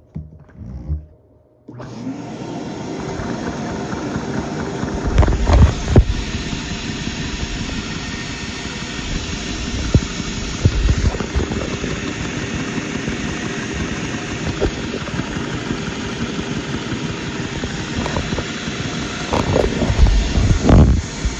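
A Lego single-overhead-cam vacuum engine powered by a vacuum cleaner's suction. The suction source switches on suddenly about two seconds in and then runs steadily with a constant hum, the engine running with it. It grows louder twice, a few seconds in and again near the end.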